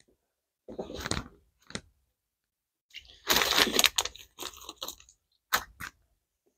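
Irregular crunching and crackling handling noises in several short bursts, the longest and loudest about three to four seconds in.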